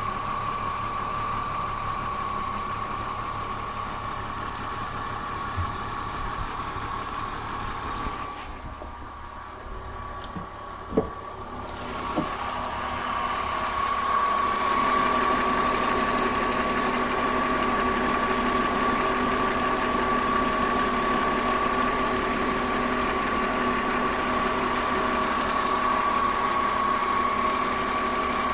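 BMW M54B30 3.0-litre straight-six idling with a ticking rattle of unknown cause, over a steady whine. The sound goes muffled for a few seconds about a third of the way in, with two sharp knocks.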